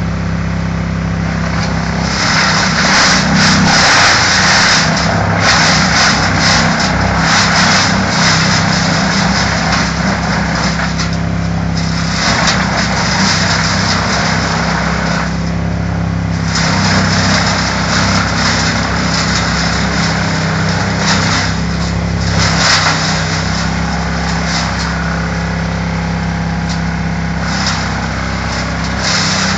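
Wood chipper running with its engine at a steady pitch, while the noise of material going through the chipper comes and goes over it, easing off briefly a little past the middle.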